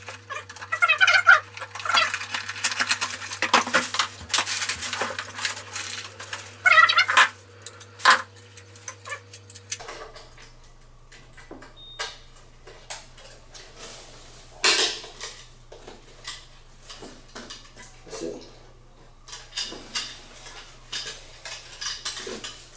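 Recessed light fixture parts being handled and unpacked: irregular clinks, knocks and rattles of the metal housing and trim against packaging, busier in the first half and sparser later.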